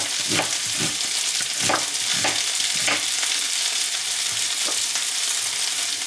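Potatoes and onion frying in a pan with a steady sizzle, over which a kitchen knife knocks on a plastic cutting board at uneven intervals as an onion is diced.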